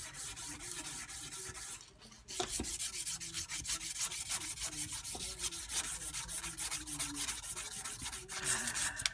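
Strip sandpaper, 180 grit, drawn quickly back and forth around the journal of a Tecumseh Snow King 8 hp snowblower crankshaft, a fast rhythmic rasping rub with a brief pause about two seconds in. The sanding is smoothing out scoring ridges left by a failed connecting rod.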